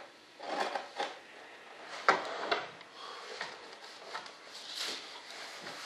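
Irregular hand-sanding and rubbing strokes on a molded RC jet wing, with a sharp knock about two seconds in.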